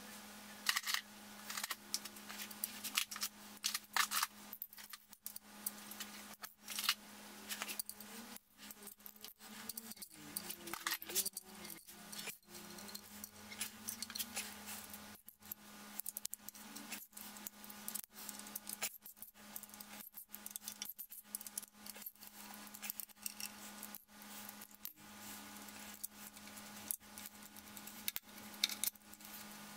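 Ratchet and socket clicking and clinking at irregular intervals as the 10 mm bolts are loosened and backed out of an LS V8's front timing-cover plate, over a steady low hum.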